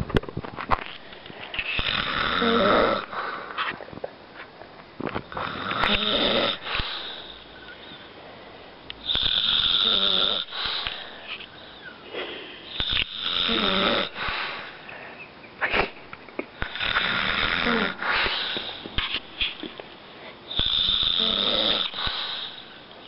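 A man snoring in his sleep: six long snores about every three to four seconds, with quieter breathing between them.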